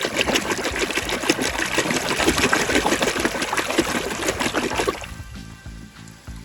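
Water pouring and splashing over toy vehicles as they are washed, stopping about five seconds in, with background music underneath.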